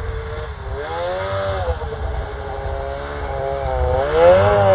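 Snowmobile engine revving as the sled rides across the snow, its pitch rising about a second in, easing off, then climbing again near the end as it gets louder.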